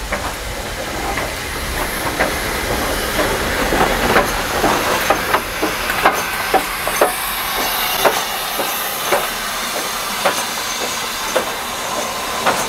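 USATC S160 steam locomotive passing slowly at close range, with a steady hiss of steam and its wheels clacking over the rail joints about once a second.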